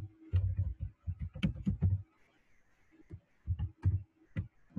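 Computer keyboard typing: quick irregular keystrokes, pausing for about a second just past the middle before starting again.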